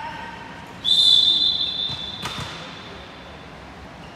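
Volleyball referee's whistle blown once, a single shrill steady blast of a little over a second, signalling the server to serve. A single thud of the ball follows about a second later.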